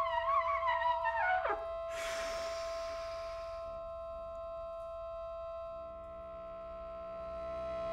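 Trumpet playing a wavering, bending line over a held accordion chord, ending about a second and a half in with a steep downward slide. A breathy rush of air follows for a second or so while the accordion keeps holding its notes, and lower accordion notes join near the end.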